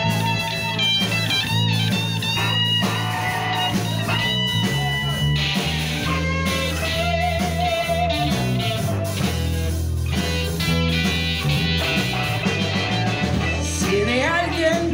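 Live rock band playing an instrumental break: an electric guitar lead over bass and drums.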